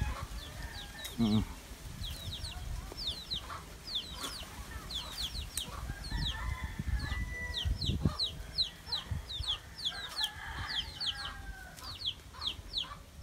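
Chickens: a rooster crows near the middle and again a few seconds later, with clucking, over a steady run of short, high, falling chirps repeating several times a second.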